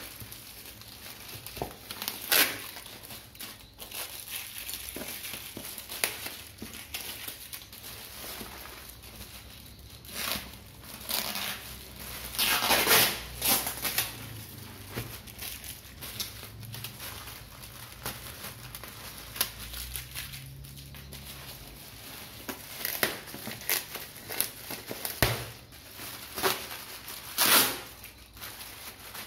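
Plastic bag crinkling and rustling as hands grip it and pull it off a boxed monitor, in irregular bursts with short quieter gaps between.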